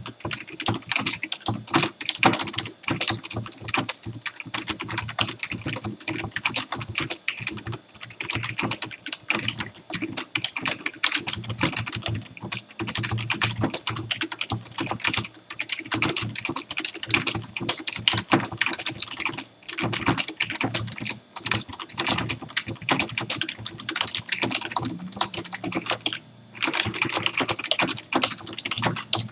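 Continuous fast typing on a computer keyboard: a dense run of key clicks, with brief pauses about two-thirds of the way through and again near the end.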